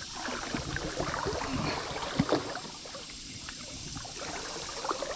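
Water splashing and lapping against a canoe's hull as it moves, with a couple of light knocks a little over two seconds in.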